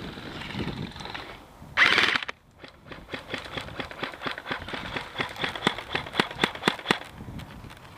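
Airsoft guns firing: a string of sharp, irregular shots, several a second, for about four seconds. The shots follow a loud half-second rustle or whoosh about two seconds in.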